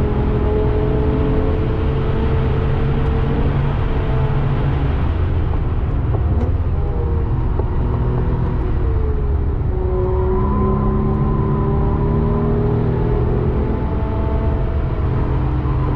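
Porsche 996 Carrera 2's 3.6-litre flat-six heard from inside the cabin on a fast lap, with heavy road rumble underneath. The engine note climbs slowly, falls away about six seconds in, then climbs again from about ten seconds.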